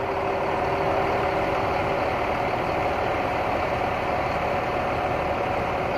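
Large bus diesel engine idling steadily.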